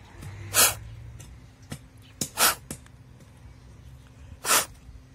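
A person's breath: three short, sharp puffs of air about two seconds apart.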